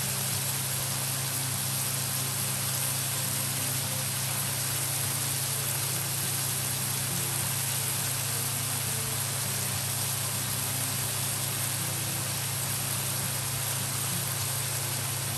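Diced pork sizzling in its juices in a wok, a steady even hiss over a constant low hum.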